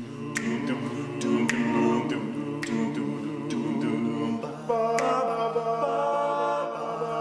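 Male a cappella vocal group of five singing in close harmony without accompaniment: held chords over a low bass part, with a chord change a little past halfway.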